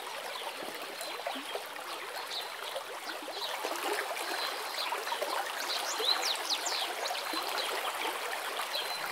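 Shallow stream running over stones: a steady rippling trickle.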